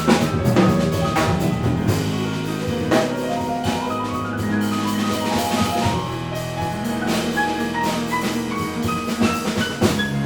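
Small jazz combo playing live: piano notes over double bass and a drum kit with cymbals keeping time.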